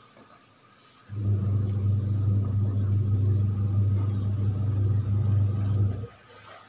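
A steady low mechanical rumble, like a motor running, that starts suddenly about a second in and cuts off suddenly near the end.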